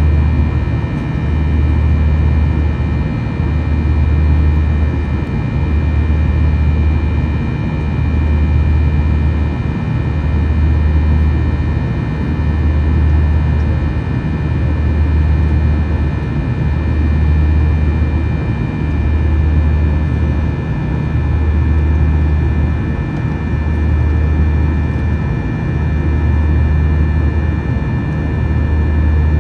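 Cabin noise of a Boeing 737-800 in flight: the steady drone of its CFM56-7B turbofan engines with thin steady high tones over it. A deep hum swells and fades about every two seconds, the beat of the two engines running at slightly different speeds.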